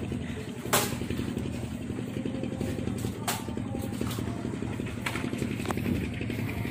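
A small engine running steadily with an even, low hum, and a few sharp clacks of handling about a second in, near three seconds in and about five seconds in.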